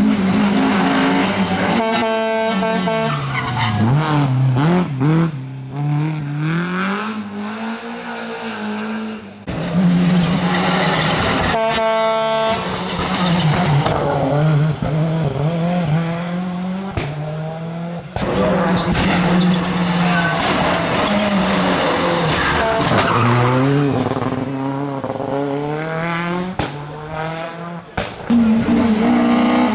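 Rally car engines revving hard, their pitch climbing and dropping again and again through gear changes and lifts, with sharp pops in between. The sound changes abruptly a few times as one car's run gives way to another.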